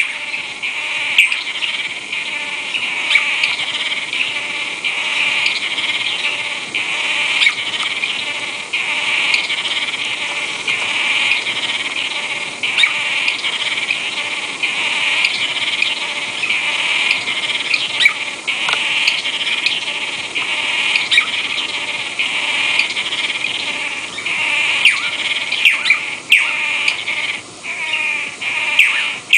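Wildlife field recording: a steady, dense, high chorus of insects, with many short bird chirps and calls scattered through it.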